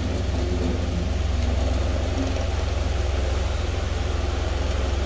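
Electric pedestal fan running beside the microphone: a steady low drone with a fast, even flutter.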